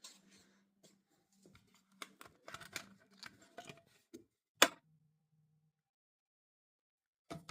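Faint rustling and scattered small clicks, with one sharp click about four and a half seconds in, then near silence.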